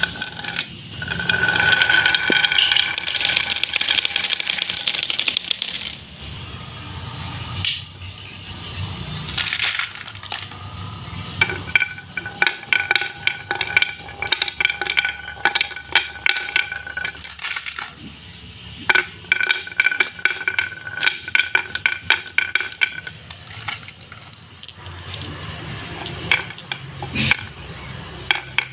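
Marbles rolling and clattering down a marble run, with many sharp clicks as they strike the track and each other. Three long stretches carry a steady high ringing under the clicks.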